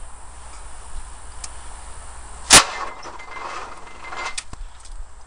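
A single sharp metallic clang about two and a half seconds in, followed by faint rustling and a few light clicks.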